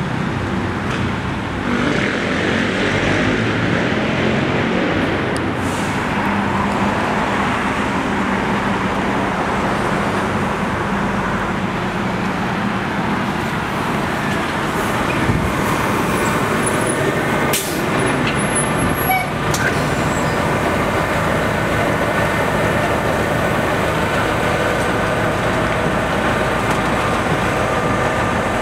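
City transit bus pulling in to the curb and standing with its engine running, over steady street traffic. A short sharp hiss of air, typical of the air brakes, comes about two-thirds of the way through.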